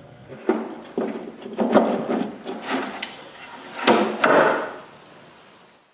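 Wooden shelf being pushed and fitted into place by hand: a series of irregular wooden knocks and scrapes that die away near the end.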